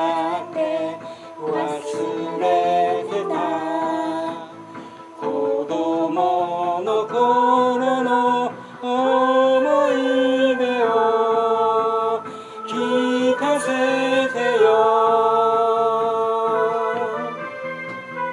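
A woman and a man singing a song together, with long held notes; the last note is held for a couple of seconds and ends shortly before the end.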